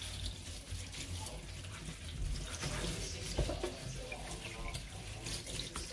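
Kitchen tap running in a steady stream onto a pile of fresh herbs in a stainless steel sink, with hands rubbing and turning the wet leaves under the water.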